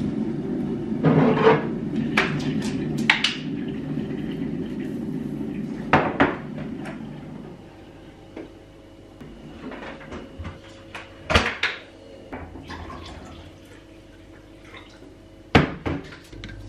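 Kitchen cupboard doors and dishes being handled: a string of sharp knocks and clinks. For the first seven seconds or so they sit over a steady low hum, which then stops.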